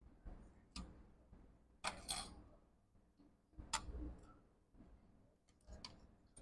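A handful of light, separate clicks and taps as tools and flex-cable connectors are worked inside an opened MacBook Pro, one every second or two, with a small cluster about two seconds in.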